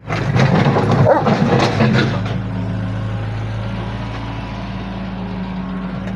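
Excavator engine running at a steady pitch, with a rapid string of sharp knocks and clicks over the first two seconds.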